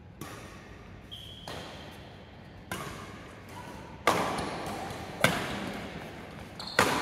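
Badminton rackets striking a shuttlecock in a rally, sharp smacks echoing in a large hall. Lighter hits come in the first half, then three loud ones about a second apart.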